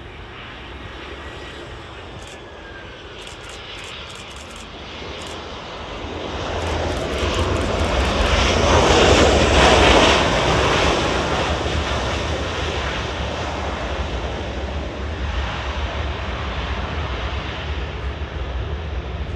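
Boeing 777 jet engines at takeoff power, a roar that swells to its loudest about halfway through as the airliner passes, then settles into a steady deep rumble as it climbs away.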